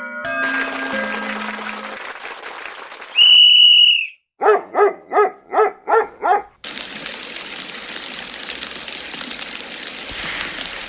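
A string of cartoon sound effects: fading chime-like notes, then a short high whistle, then six quick dog-like yaps, then a steady hissing rattle that turns brighter near the end.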